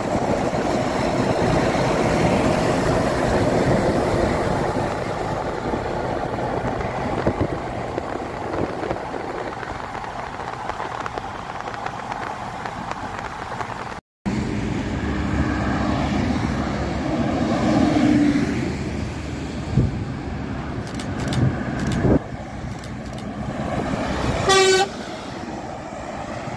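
Steady road and tyre noise while passing close alongside a tanker semi-trailer. After a cut come heavy trucks driving by. About 24 s in, one short, loud truck horn blast sounds from a passing tanker truck.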